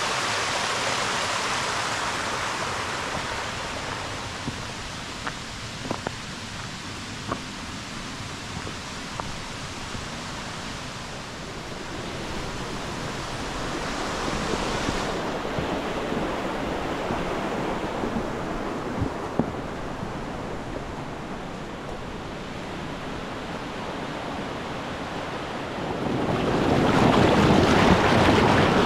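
Rushing water of the Borovniščica stream and its waterfalls running in high flow, a steady noise that eases off for a while and then swells sharply near the end. A few faint knocks in the quieter middle stretch.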